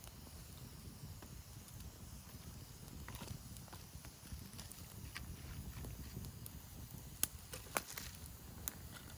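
Wood campfire crackling, with scattered small snaps and a few louder pops in the second half.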